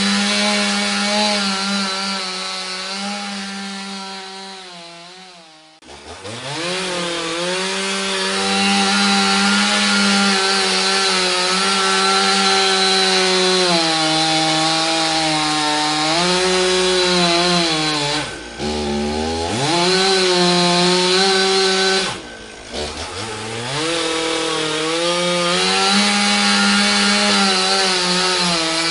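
Chainsaw running at high revs. It fades away a few seconds in and comes back with a rising pitch. Later its pitch sags and picks up again twice.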